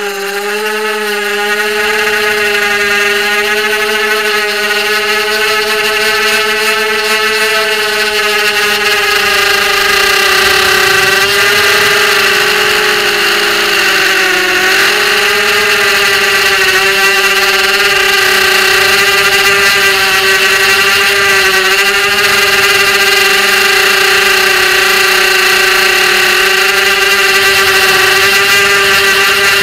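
ZMR250 racing quadcopter's brushless motors and propellers whining steadily in flight, heard close up through the onboard camera. The whine builds over the first couple of seconds, then wavers slightly in pitch with the throttle and dips briefly about halfway through.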